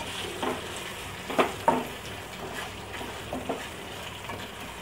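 Steel spoon stirring gram-flour gatte pieces through hot oil and spices in a stainless steel kadhai: a low steady sizzle, with the spoon clinking and scraping against the pan several times.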